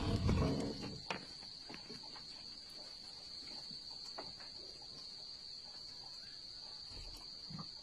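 A cricket trilling steadily in one unbroken high-pitched tone, with a brief louder low rustle in the first second and a few faint clicks.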